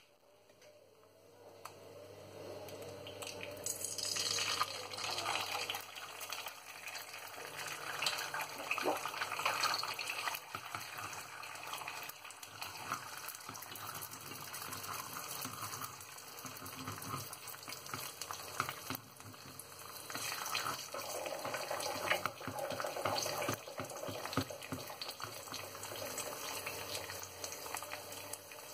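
An egg frying in a hot nonstick pan: quiet for the first couple of seconds, then sizzling with fine crackles that builds up a few seconds in and keeps going.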